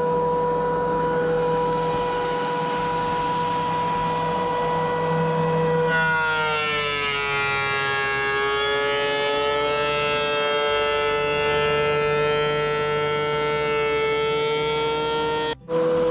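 DeWalt DW735 thickness planer running with a steady high whine. About six seconds in, a reclaimed hardwood board reaches the cutterhead: the pitch drops under the load and the tone gets rougher, then slowly climbs back as it cuts. The sound breaks off for an instant just before the end, then the whine resumes.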